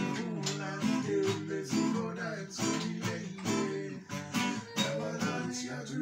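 Acoustic guitar being strummed, chords played in a steady, even rhythm.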